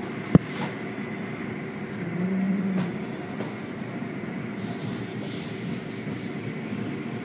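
Automatic car wash heard from inside the car: steady machinery rumble and hiss as the cloth curtains and wash strips work over the foam-covered car, with a sharp click near the start.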